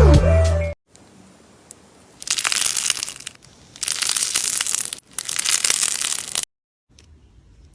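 Slime being pressed and squeezed close to the microphone: three bursts of about a second each of dense crackling and crunching, after a short musical intro that stops under a second in.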